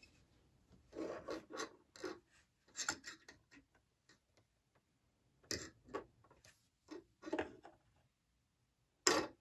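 A 3D-printed plastic part being set down and slid about on a painted wooden surface: a string of short, irregular scrapes and taps, with one sharper knock near the end.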